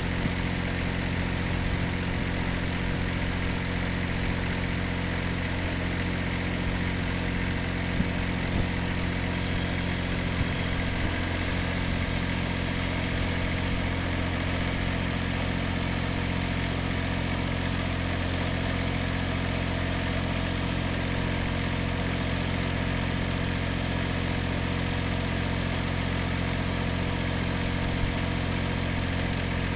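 Robotic utility vehicle's engine idling steadily. A high whine joins about nine seconds in and continues as the vehicle's robotic arm reaches out.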